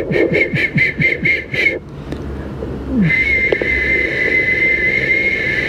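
High whistling held at one pitch: a quick run of about seven short whistles, roughly four a second, then after a pause one long steady whistle lasting about three seconds.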